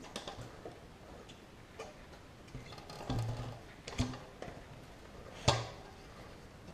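Scattered sharp metal clicks and taps from a bicycle quick-release skewer and rear-wheel parts being handled and fitted. The loudest click comes late, with a few lighter ones before it.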